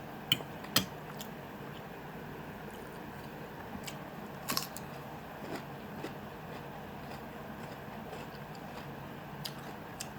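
Eating up close: a few sharp clicks and crunches, the loudest within the first second and a cluster about four and a half seconds in, over a steady low background hum.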